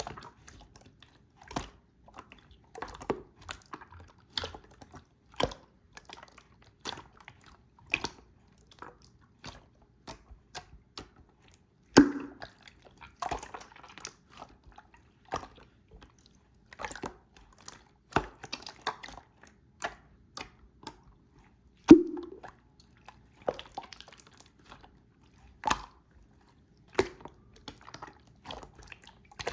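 White slime being handled, giving irregular sticky clicks, pops and squelches. Two louder plops come about twelve seconds in and again about ten seconds later.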